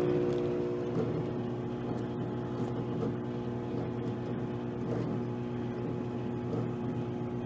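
Microwave ovens running: a steady hum from their high-voltage transformers mixed with the drone of the cooling fans. One fan is running rough, which the owner takes for a bad fan clogged with grease.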